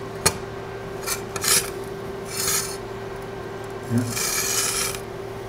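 Thin welded sheet steel handled in leather welding gloves and slid over a metal workbench: a sharp click just after the start, then about four short scrapes, the longest near the end.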